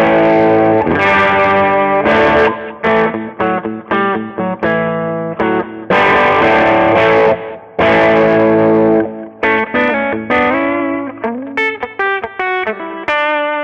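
Electric guitar with Lace Alumitone humbucking pickups played through heavy distortion ('plenty of drive'). Sustained, ringing distorted chords are cut off short between hits, then a few single notes with vibrato come near the end.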